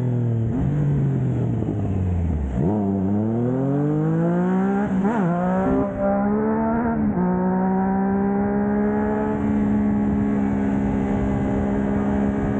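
Triumph Trident 660's three-cylinder engine through a Blackwidow 200mm aftermarket exhaust. The revs fall off for about two and a half seconds, then climb as the bike accelerates, with breaks in pitch at gear changes about five and seven seconds in. After that it holds a steady cruise.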